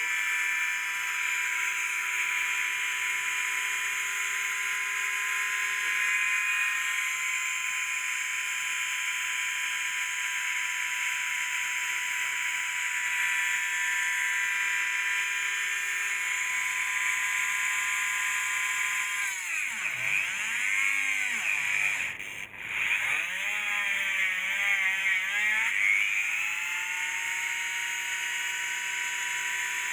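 Electric whine of a hoverboard wheel's hub motor spinning at a steady speed, its pitch dropping steeply and climbing back twice about 20 to 26 seconds in as the motor slows and speeds up again, then holding steady once more.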